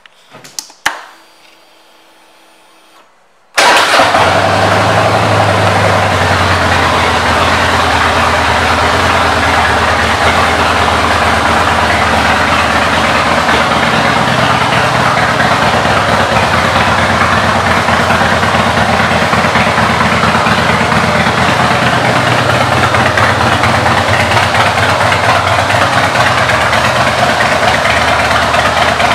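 2004 Harley-Davidson Heritage Softail Classic's Twin Cam 88B V-twin, fitted with Python pipes, starts up about three and a half seconds in and then idles steadily.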